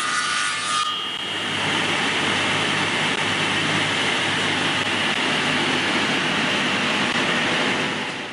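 Double-shaft circular log saw running. About a second in, the sawing of the wood stops and the machine runs on without a load: a steady mechanical hum with a high whine from the spinning blades, cutting off at the end.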